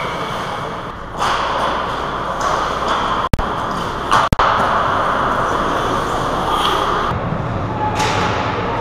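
Ice hockey skates scraping and carving on the ice, a steady scratchy hiss, with a couple of sharp clicks about three and four seconds in.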